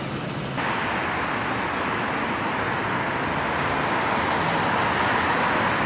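City road traffic: a steady hiss of passing cars and tyres, which changes abruptly in tone about half a second in.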